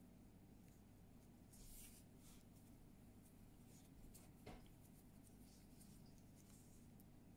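Near silence with faint scratchy rustles of cotton yarn and a metal crochet hook being handled, and one small click a little past the middle.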